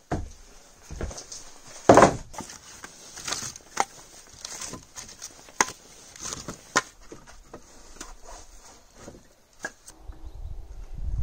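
Split birch firewood logs being dropped and stacked onto a woodpile: a run of irregular wooden knocks and clatters, the loudest about two seconds in. Near the end the knocking stops and a low wind rumble on the microphone takes over.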